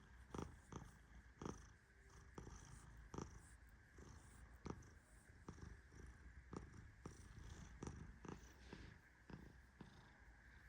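Persian cat purring softly, a low steady rumble, with faint irregular clicks, one or two a second.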